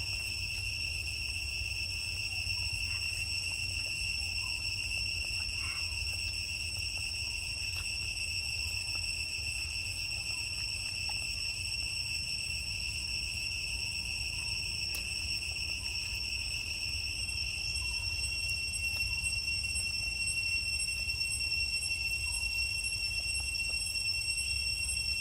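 Steady high-pitched drone of insects, one unbroken tone with fainter higher tones above it, over a low rumble.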